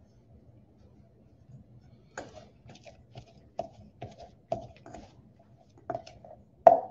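Pastry cutter chopping cold butter into a flour-and-cinnamon streusel in a stainless steel bowl: irregular sharp clinks as the metal blades strike the bowl, two or three a second, starting about two seconds in, the loudest just before the end.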